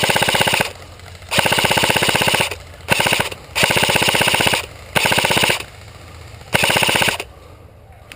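Airsoft gun firing in full-auto bursts, each a rapid rattle of shots lasting half a second to a second. One burst ends just after the start and five more follow, with short pauses between them.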